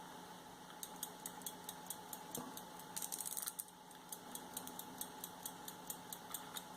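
Fusee-driven English lever pocket watch movement ticking, about five ticks a second, as its balance runs on a little fresh winding. The ticking starts about a second in, and there is a brief burst of rattling about three seconds in.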